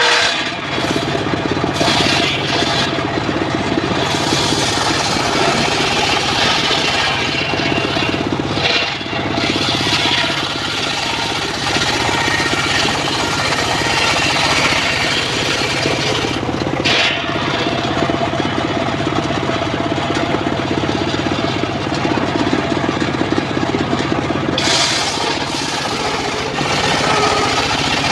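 Mobile circular sawmill running steadily, its engine and spinning saw blade sounding together as loud mechanical noise. The high hiss drops away briefly a few times.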